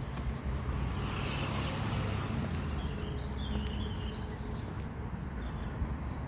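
Songbirds chirping and singing faintly, about a second in and again around three seconds in, over a steady low rumble.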